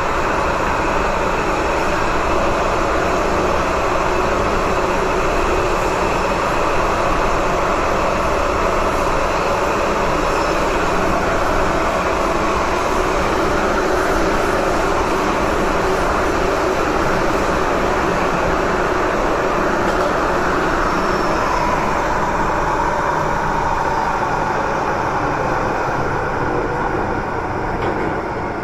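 MTR M-train electric multiple unit running at speed through a tunnel, heard from inside the car: a loud, steady noise of wheels on rail and running gear, easing slightly near the end.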